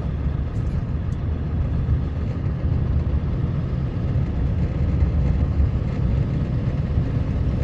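Steady low rumble of a motor vehicle on the move, engine and road noise without any distinct events.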